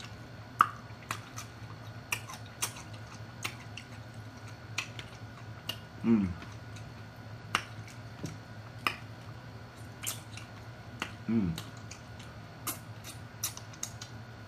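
Close-up mouth sounds of eating rotisserie chicken: irregular wet smacks and clicks of chewing, with two short moans falling in pitch about six and eleven seconds in.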